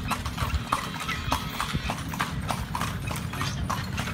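Horse's hooves clip-clopping at an even pace on a paved street as it pulls a kalesa carriage, over a steady low rumble.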